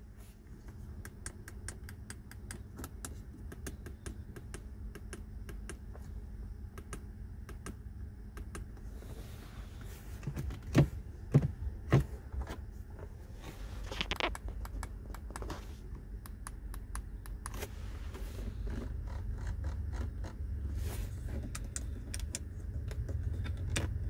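Buttons and switches on a 2018 Audi A5 Cabriolet's centre console being pressed one after another: a run of small clicks, with a few louder clicks about eleven to fourteen seconds in, over a low steady hum.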